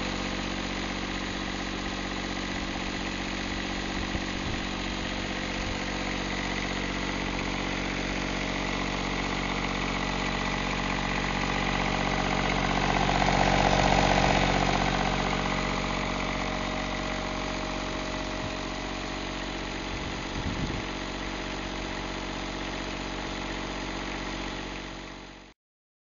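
Westerbeke 7.6 BTD marine diesel generator running steadily, swelling louder for a few seconds about halfway through.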